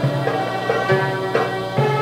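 Ensemble of Chinese hammered dulcimers (yangqin) playing a melody together, the hammered notes ringing on.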